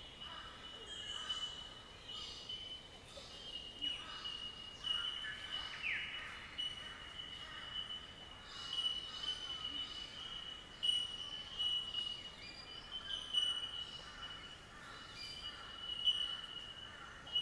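Bush ambience: a steady high-pitched insect drone runs throughout, with many short bird chirps and calls over it, including one falling call about six seconds in.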